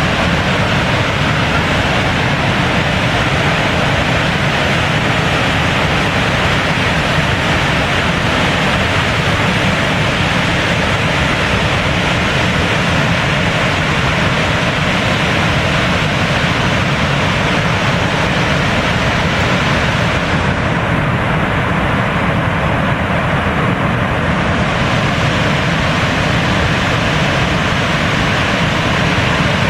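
Large waterfall: a steady, loud rush of falling water, with no break. Its hiss dulls for a few seconds about two-thirds of the way through.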